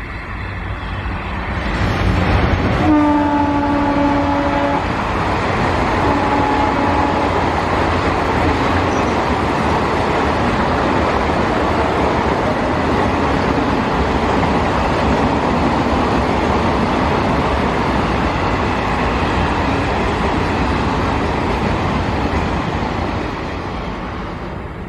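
Twin ALCO diesel locomotives blow a two-note horn for about two seconds as they pass, then give a shorter blast a moment later. After that the coaches run past with a steady loud rumble of wheels on the rails, which fades near the end.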